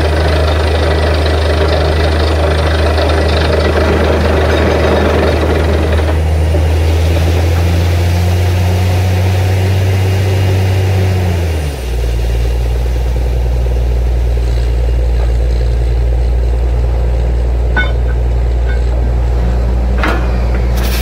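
Borewell drilling rig's engine running steadily, its note dropping to a lower pitch about twelve seconds in, with a rushing hiss of air and water from the bore that eases about six seconds in. A few faint clicks near the end.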